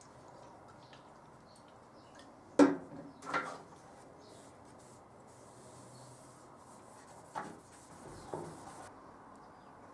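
Handling noise: a few knocks and clatters of objects being picked up or set down on a hard surface. The loudest is a sharp knock about two and a half seconds in, followed by a softer one; two quieter knocks come near the end.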